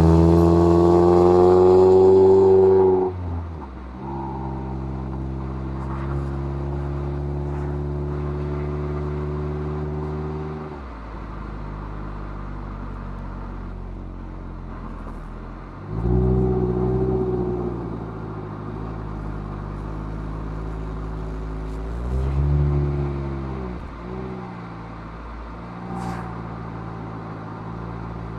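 Mazda MX-5's four-cylinder engine heard through its stock exhaust, pulling hard under throttle and rising in pitch for the first few seconds before easing off. It then cruises steadily, drops back at about eleven seconds, and swells under throttle again at about sixteen seconds and at about twenty-two seconds.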